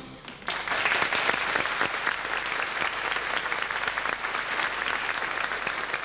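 Theatre audience applauding, the dense clapping breaking out about half a second in and carrying on steadily.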